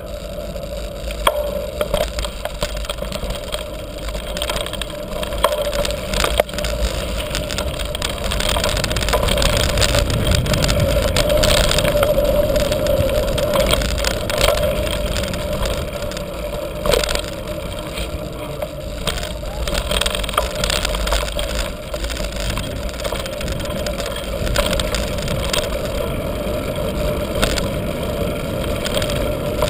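Orbea mountain bike rolling fast, heard from a camera mounted on the bike: steady tyre and riding noise with scattered knocks and rattles as it goes from asphalt onto a bumpy dirt trail.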